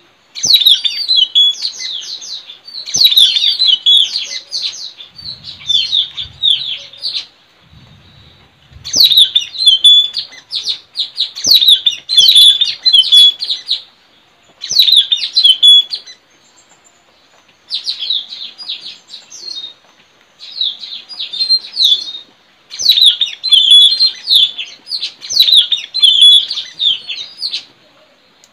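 Blue-rumped parrots (tanau) calling: bouts of rapid, shrill chirps a second or two long, repeating with short pauses.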